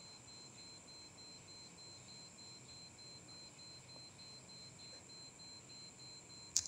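Faint steady high-pitched electronic whine over a low hum, with a sharp click near the end.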